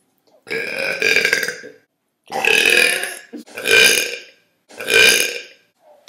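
A young woman burping loudly four times in a row, each burp lasting about a second.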